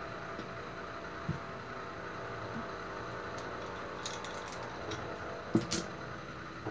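Small metal mixer parts, a shaft with its bearing and metal bushings, clinking lightly as they are handled and set down on a workbench, with a sharper ringing clink about two-thirds of the way through. A steady background hiss runs underneath.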